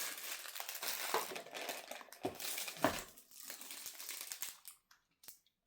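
Packaging crinkling and rustling as items are unwrapped and lifted out of a gift box, with many small crackles, stopping about four and a half seconds in and leaving a few faint clicks.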